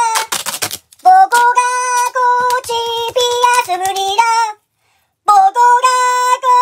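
Soundtrack of a high-pitched singing voice in short held notes, the dominant sound. In the first second a brief ripping crackle, duct tape pulled off the roll, and about four and a half seconds in the sound cuts out completely for under a second before the singing resumes.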